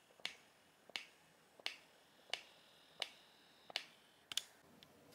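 Faint, evenly spaced snap-like clicks, about one every 0.7 seconds, each with a brief ringing tail.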